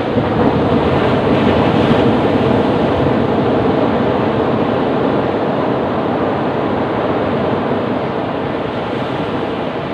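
Ocean surf breaking on a beach: a wave swells up sharply at the start, is loudest about two seconds in, then washes out slowly in a steady rush.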